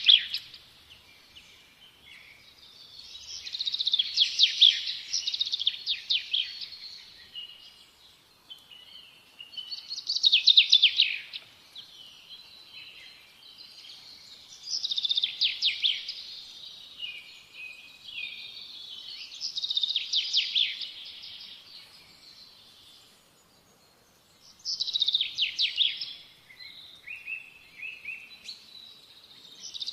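Small songbird singing: a phrase of rapid chirps and trills every four or five seconds, about seven phrases in all, with quiet gaps between them.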